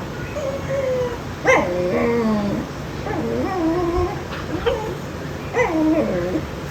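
A male dog whining over and over in a series of about five whines that rise and fall in pitch, crying to get at a female just after mating.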